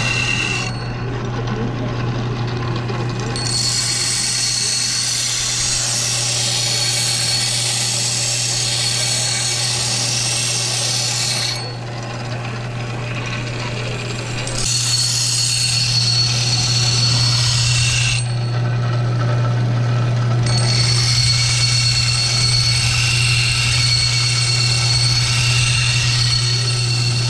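Electric belt sharpener running with a steady low hum of its motor. A hatchet blade is ground against the moving belt three times, each pass a harsh grinding hiss lasting several seconds: one starting a few seconds in, a short one in the middle, and one through the end.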